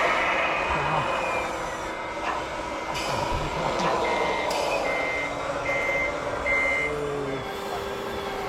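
A reversing alarm beeping four times, evenly spaced, over a steady truck-engine drone.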